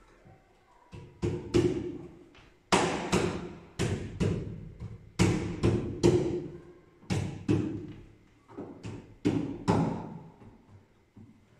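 Wooden door casing trim being knocked onto a door frame by hand, its tongue driven into the frame's groove: a run of about twenty hollow knocks in irregular clusters, each with a short ring.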